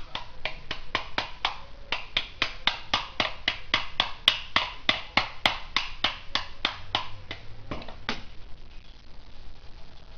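Sharp metallic clicks from hand-tool work on a motorcycle exhaust, evenly paced at about four a second, each with a short ring. They pause briefly about two seconds in and stop about eight seconds in.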